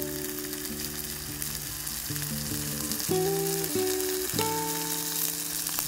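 Food sizzling and crackling steadily as it fries in a pan, under background music of slow, held notes.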